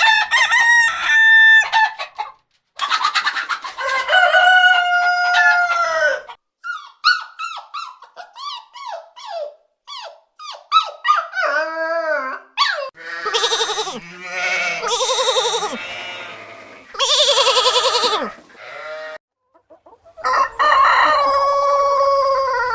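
Roosters crowing and chickens clucking: a string of separate calls, some long and held with a falling end, others short and clipped, broken by abrupt gaps.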